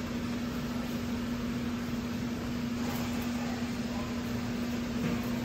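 A steady machine hum with one constant low tone, over a soft even hiss.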